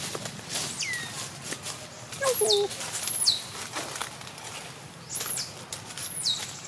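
A bird calling repeatedly in the forest: about five short, high whistles, each sweeping sharply downward, with a brief lower call about two seconds in.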